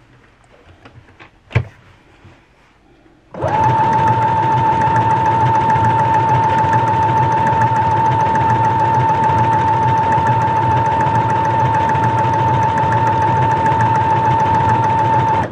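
Brother XR9550 computerized sewing machine stitching a decorative stitch at a steady speed, a constant motor whine with a low mechanical hum. It starts about three seconds in, after a few small clicks.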